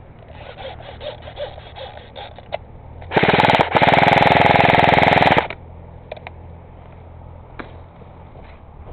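Airsoft rifle firing full-auto close by: a short burst a little after three seconds in, then a longer burst of about a second and a half. The shots come as a fast, even rattle.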